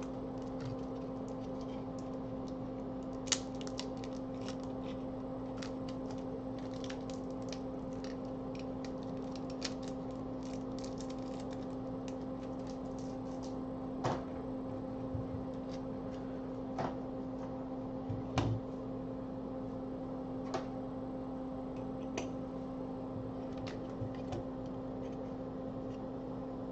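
Scattered light clicks and taps of small parts being handled over a steady electrical hum, with the sharpest clicks about three seconds in and about eighteen seconds in.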